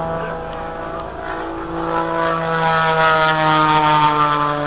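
Single-engine propeller aerobatic plane's engine running at high power through a smoke-trailing dive and low pass, getting louder about two seconds in as it comes closer.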